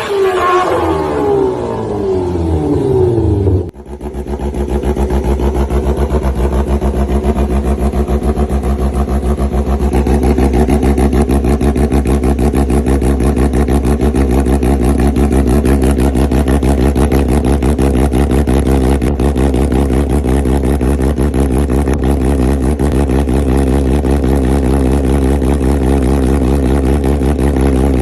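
A 1000 cc sport motorcycle's engine and exhaust. Its revs fall away over the first few seconds, then after an abrupt cut it idles steadily with a deep, fast, even pulse.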